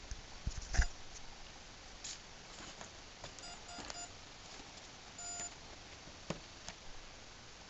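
A foam RC plane being handled and turned over, with knocks and rustling; the loudest knock comes about a second in. A few short electronic beeps sound in the middle.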